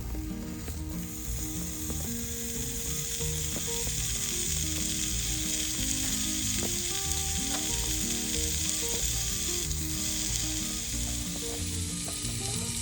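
Meat sizzling on a hot steel griddle, a dense steady hiss that swells about a second in as it hits the plate.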